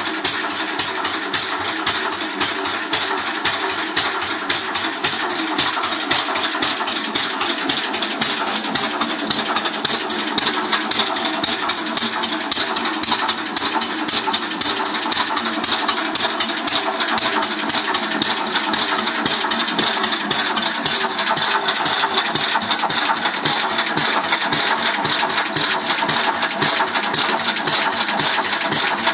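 Small single-cylinder petrol engine of a Ransomes MG crawler idling, with a steady run of evenly spaced firing beats that quicken a little after about six seconds.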